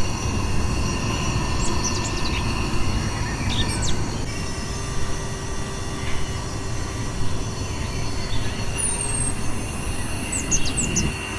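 Max Pump 2 portable electric air pump running steadily while inflating a tube: a continuous low rush of air and motor noise with steady whining tones. Birds chirp briefly over it now and then.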